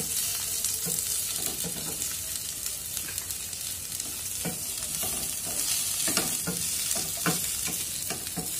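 Vegetables sizzling in hot oil in a frying pan as a wooden spatula stirs them, with a steady hiss throughout. From about halfway, quick scraping knocks of the spatula against the pan come thick and fast.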